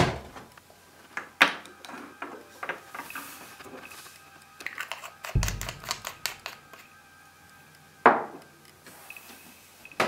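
Clicks and knocks of a manual typewriter and objects being handled on a wooden desk: a few loud single strikes, clusters of small clicks, and a dull thump about five seconds in. Faint music runs underneath.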